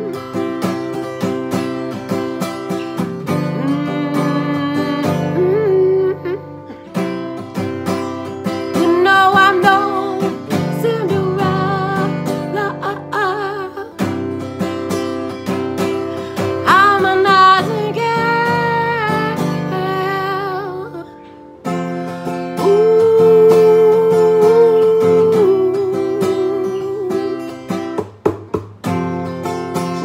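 A song: plucked acoustic guitar with a singing voice that slides and wavers in pitch, with brief breaks about two-thirds of the way through and near the end.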